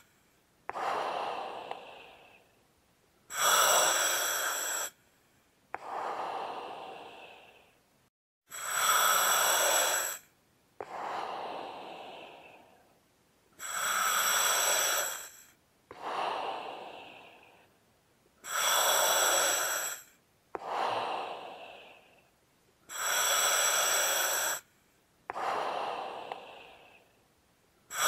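Slow, heavy human breathing: a loud, hissing in-breath that starts and stops sharply, then a fading out-breath, about one breath every five seconds.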